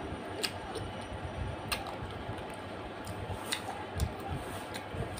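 Mouth-close eating sounds of chewing spicy chicken feet curry with rice: scattered short sharp clicks and smacks, a dozen or so irregularly spaced, over a steady background hiss.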